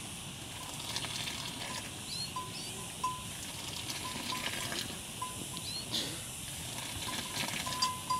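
Milk being stirred and ladled back into a metal pan over a wood fire, the stream splashing and the ladle clinking against the pan. A small bell rings briefly now and then at the same pitch, and birds chirp.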